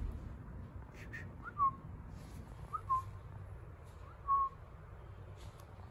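Three short whistled notes a little over a second apart, each a quick upward slide settling onto a steady pitch.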